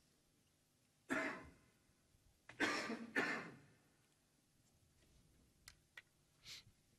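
A person coughing: one cough about a second in, then two more in quick succession a second and a half later. A few faint clicks and a short soft sound follow near the end.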